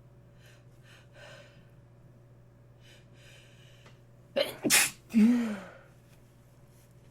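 A person with a congested nose sniffing in faintly a few times, then sneezing once loudly about four and a half seconds in, the sneeze ending on a falling voiced sound.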